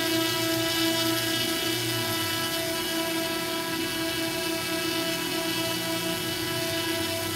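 DJI quadcopter drone's motors and propellers whining steadily in flight: a hum of several steady tones with a hiss above.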